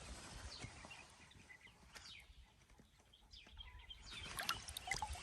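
Faint splashing and dripping of hands scooping in a shallow puddle to catch small fish. The small splashes come more often and a little louder near the end.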